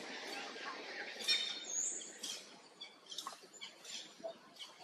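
Birds calling: short high chirps and whistled notes over a faint hazy background, with a few short clicks in between.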